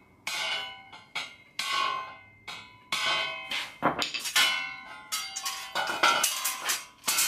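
Hand hammer striking a tack-welded steel square-tubing frame: a string of a dozen or so sharp blows, each leaving the tubing ringing like a bell, closer together near the end. The frame is being knocked back into square after welding heat pulled it out of true.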